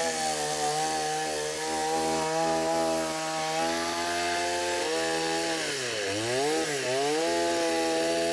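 Two-stroke chainsaw running at high revs while cutting into a fallen tree trunk, its engine note held steady, then dipping and picking back up twice about six seconds in.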